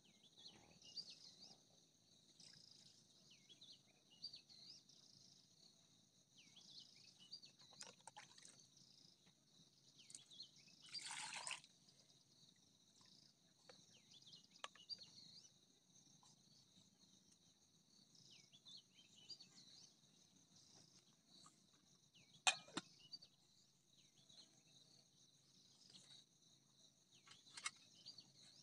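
Faint steady chorus of crickets chirping in high pitches, with a few soft splashes and knocks from rice being washed by hand in a metal pot and its water poured off, including a brief splash about eleven seconds in and a sharp clink about two-thirds of the way through.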